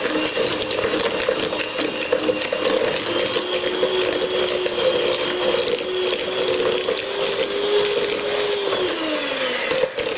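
Electric hand mixer running, its wire beaters creaming margarine with sugar in a plastic bowl with a steady motor whine and a rattle of beaters against the bowl. About nine seconds in the motor pitch falls as it winds down, and it stops near the end.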